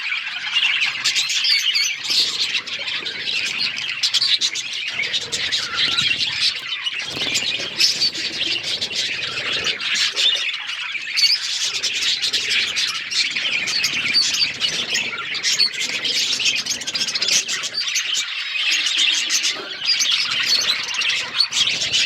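A flock of budgerigars chirping and chattering continuously, with many short overlapping warbles and squawks.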